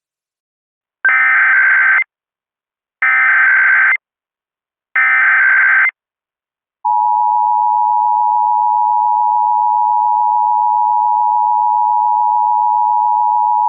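Emergency Alert System broadcast tones: three one-second bursts of warbling SAME digital header code with a second's gap between them. About a second after the last burst, the steady two-tone EAS attention signal (853 and 960 Hz together) begins and holds.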